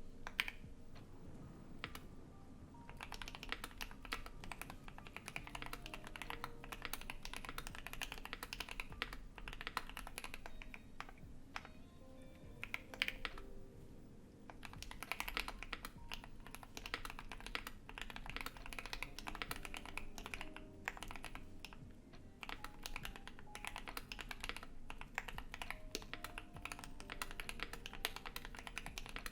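Typing on a Keychron Q1 aluminium gasket-mount keyboard with lubed and filmed JWK Alpaca linear switches, a polycarbonate plate and ABS keycaps, with reverb added. The keystrokes come in fast runs with brief pauses, over a steady low hum from a loud PC.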